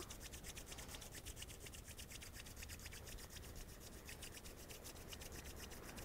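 Palms rubbed briskly back and forth against each other, a faint, fast, even swishing of skin on skin to warm the hands.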